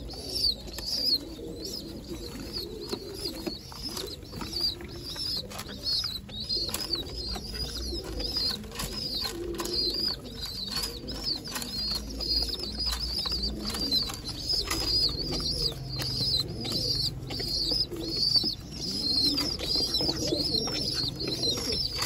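Pigeon squabs begging to be fed: a continuous run of high, repeated squeaks with wing flapping. Adult pigeons coo low underneath.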